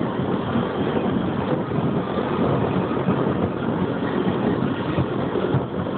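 Fireworks finale barrage heard from a distance: a dense, continuous rumble of overlapping booms with no gaps.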